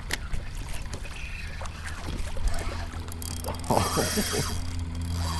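Mechanical clicking, scraping and short squeaks of fishing gear being handled aboard a kayak, over a steady low hum.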